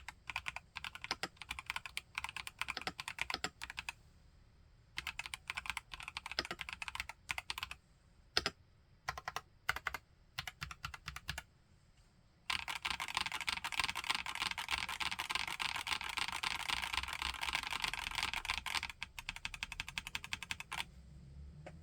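IQUNIX Q66 mechanical keyboard with TTC Holy Panda tactile switches being typed on: bursts of keystrokes with short pauses, then a dense, unbroken run of rapid keystrokes for about six seconds past the middle, tailing off into a few scattered presses near the end.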